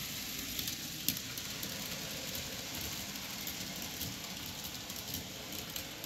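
N-scale model freight train rolling along the track: a steady rushing hiss of wheels and motor, with a few faint clicks.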